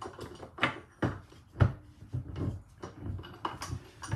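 A series of irregular clunks and knocks: the British Seagull outboard, heavy, is being set in a bench vise, its jaws clamping on the cylinder head. The loudest knock comes about a second and a half in.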